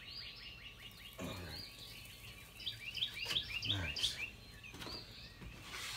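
A small songbird singing, a string of quick down-slurred chirps repeating throughout, with a few soft knocks and rustles of handling about a second in and again near four seconds.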